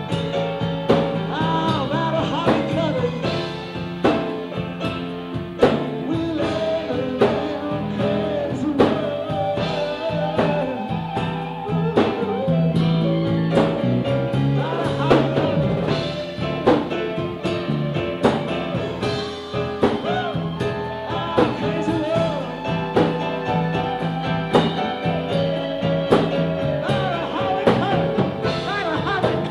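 Live blues-rock band playing: electric guitar over bass and drum kit, the guitar line sliding and bending in pitch over a steady drum beat.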